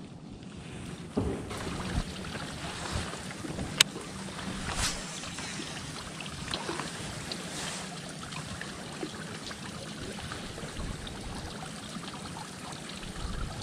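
Small waves lapping against the boat, with light wind. A sharp click comes about four seconds in, a short swish about a second later, and a few small knocks.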